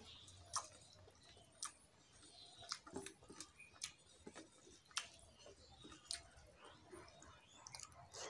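Faint eating sounds: fingers mixing rice and spinach dal on a steel plate, with small sharp clicks against the metal about once a second, soft wet squishing and some chewing.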